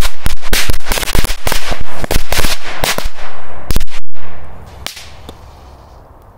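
A bundle of small Korsar-1 firecrackers going off in a rapid, irregular string of sharp bangs, the last and loudest about four seconds in, then dying away.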